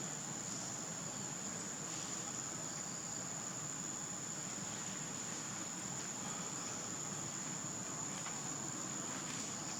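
Insects trilling outdoors: one steady, unbroken high-pitched whine over faint background noise.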